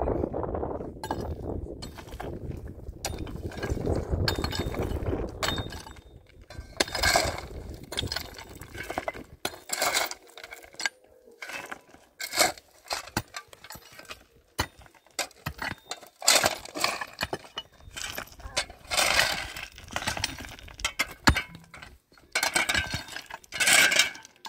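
Low rumbling noise for the first few seconds, then a run of irregular clinks, knocks and short scrapes of hard objects being handled.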